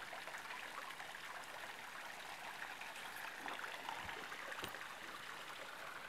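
Mountain stream running over rock ledges into a pool, a steady rushing hiss of water. Two faint knocks about four seconds in.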